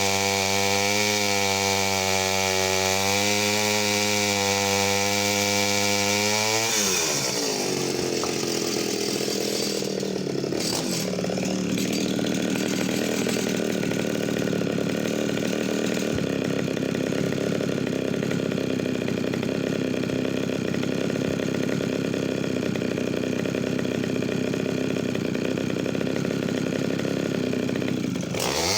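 Vintage Pioneer P25 51cc two-stroke chainsaw at full throttle: the engine note drops about seven seconds in as the chain bites into the wood, and it cuts under load with a rougher, noisier sound before revving back up as it comes free of the cut near the end.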